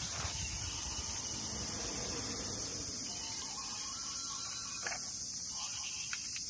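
Insects buzzing in a steady, high-pitched chorus, with a couple of sharp clicks about five and six seconds in.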